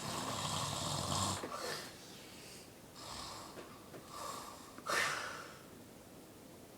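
A sleeping person snoring: one long loud snore with a low rattle for the first second and a half, then softer breaths, and a short sharp noisy breath about five seconds in.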